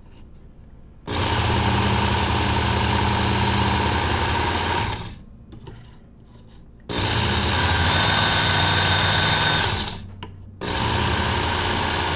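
Work Sharp Ken Onion Edition electric belt sharpener running in three separate bursts of a few seconds each, its fine X4 abrasive belt grinding the 14C28N steel edge of a knife blade drawn through the guide. The motor is switched off between passes, and the third pass is still running at the end.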